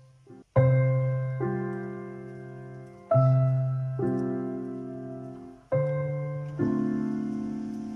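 Slow background piano music: chords struck one after another, each left to ring and fade before the next.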